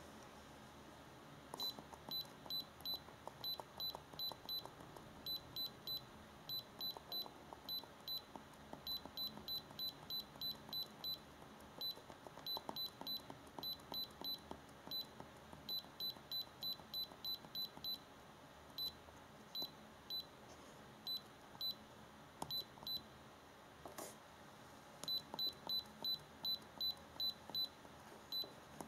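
iCarsoft i930 handheld scan tool beeping at each button press as its menu is scrolled: runs of short high beeps, about three a second, broken by a few pauses.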